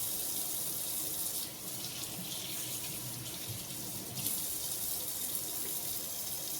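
Floured pork roast sizzling as it browns in a hot cast iron skillet: a steady high hiss that eases off about one and a half seconds in and grows louder again about four seconds in.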